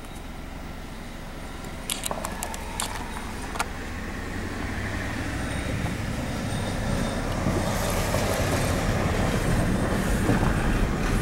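Car driving on a gravel road: low engine and tyre rumble with gravel noise, growing steadily louder, heard from inside the cabin. A few sharp clicks sound about two to four seconds in.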